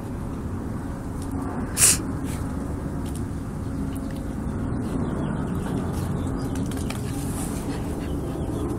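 Saint Bernard puppy chewing a bone on loose gravel: scattered clicks of bone and stones, with one sharp knock about two seconds in, over a steady low rumble.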